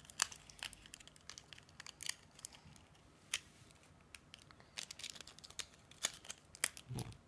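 Small foil blind-bag wrapper crinkling and crackling in a child's fingers as he picks it open, in short irregular crackles with a few sharper clicks.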